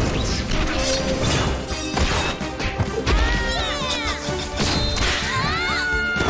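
Cartoon fight sound effects over a dramatic music score: repeated crashes and whacks of blows and magic blasts, with high gliding cries over the middle and again near the end.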